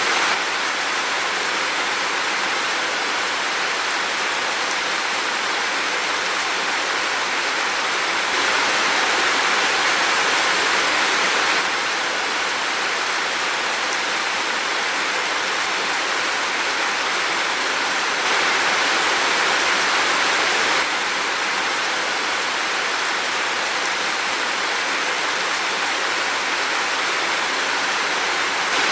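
Heavy rain falling in a dense, even hiss that swells slightly louder twice for a few seconds, around a third and two-thirds of the way through.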